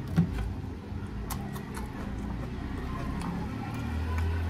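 Close-miked eating sounds: a person chewing food, with scattered small mouth clicks and smacks, a sharp click about a fifth of a second in.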